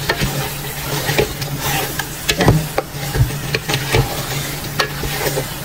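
Wooden spatula stirring chicken pieces coated in curry paste in an aluminium pot: irregular scrapes and knocks of the spatula against the pot over a soft sizzle of frying. A steady low hum runs underneath.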